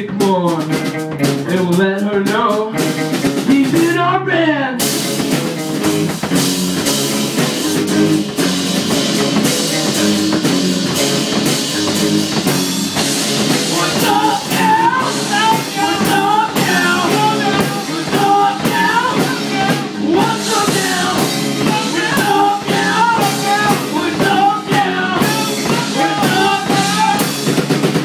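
Small rock band playing live: electric guitars over a drum kit. Sliding notes come in the first few seconds, and a higher melody line runs over the top from about halfway.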